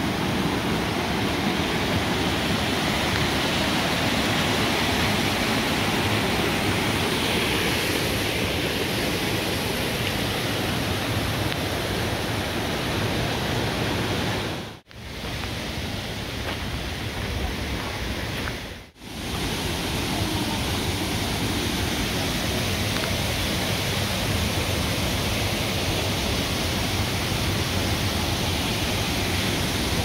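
Steady rushing of water from the gorge's brook, cascades and waterfalls, cutting out sharply twice: about halfway through and again about four seconds later.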